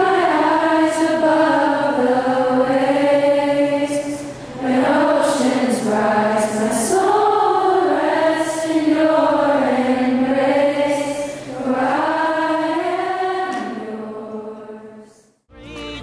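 A group of girls singing a slow sacred hymn in unison, in long held phrases with short breaths between them. The singing fades away, and just before the end a music track cuts in.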